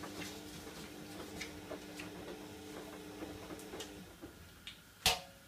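Light clicks and taps of a kitchen exhaust fan's white plastic parts being handled and scrubbed at a sink, over a steady low hum that stops about four seconds in. A single sharp knock near the end is the loudest sound.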